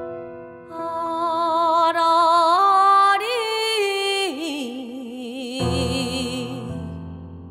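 A singer in Korean traditional gugak style holds long notes with wide vibrato over piano, stepping up twice in pitch and then falling back about halfway through. Low piano chords come in near the end.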